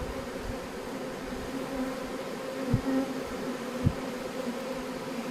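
A swarm of honeybees humming steadily as they fan and move into the hive, the sign of a swarm settling into its new home. Two brief low thumps come about two and three-quarter and four seconds in.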